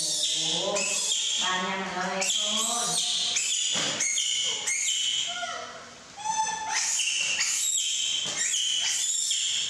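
Baby monkeys squealing in many short, high-pitched calls, one after another.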